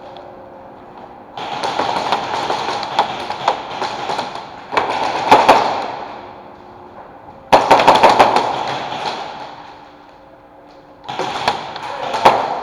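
Airsoft guns firing rapid strings of shots in four bursts, with short pauses between them.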